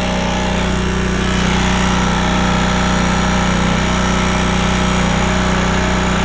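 Portable generator's small engine running steadily under load, powering an electric sump pump.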